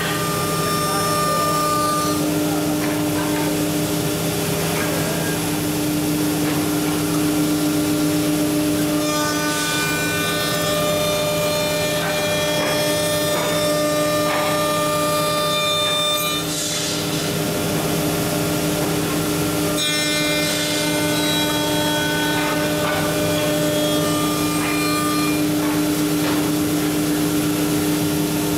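A 5-axis CNC router's spindle runs with a steady whine while its cutter mills a wooden stair-handrail piece. Higher cutting tones come in for two stretches of several seconds each, about a third of the way in and again past the middle.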